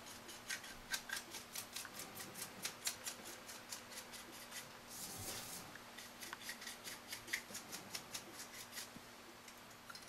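A stiff 1-inch paintbrush scrubbing and flicking over a model steam locomotive's boiler details as an oil wash is worked into the crevices: faint, quick scratchy ticks, about four a second, with a longer brushing sweep about five seconds in.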